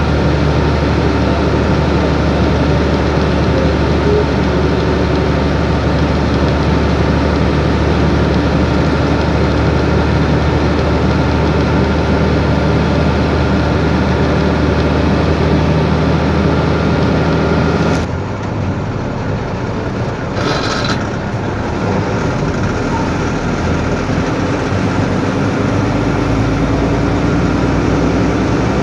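Truck engine running steadily with a deep hum; about two-thirds of the way through the sound drops and thins as the engine eases off, and a brief higher tone sounds just after.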